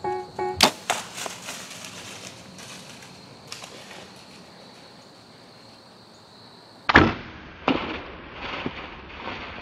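A compound bow shot at a whitetail buck: a sharp crack under a second in, then rustling in dry leaves as the deer bolts. About seven seconds in comes the loudest sound, a heavy thump, followed by a few more sharp knocks.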